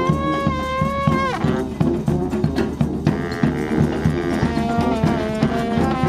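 Street brass band playing live, with trumpets, trombone, sousaphone and bass drum. A long held note breaks off about a second in, then the band carries on over a steady drum beat.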